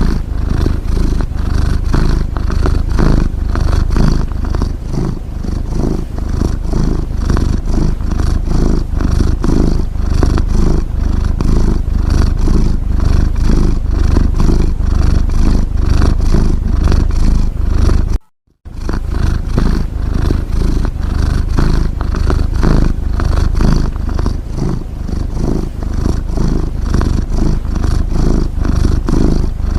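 Domestic cat rumbling steadily with a rapid, fluttering purr-like rumble. It breaks off for a moment about 18 seconds in.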